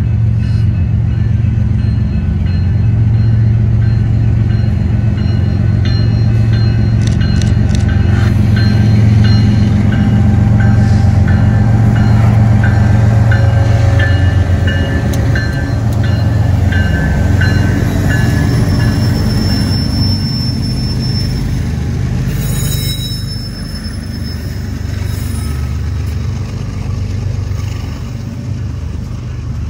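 BNSF freight train led by several GE diesel locomotives passing close by. The engines run loud with a deep steady drone, which eases after about twenty seconds to the rumble of the freight cars rolling by. A grade-crossing bell dings at an even rate through the middle.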